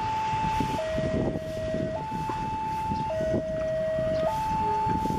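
Railway level-crossing warning siren sounding a two-tone electronic hi-lo alarm. It switches between a higher and a lower tone about every 1.2 seconds over a low background rumble, signalling that a train is approaching.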